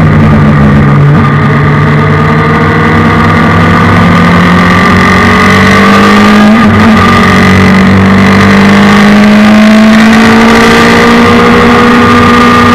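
Suzuki Hayabusa inline-four motorcycle engine in a race car, heard onboard under load. Its note climbs slowly and steadily as the car pulls through one gear, then levels off near the end.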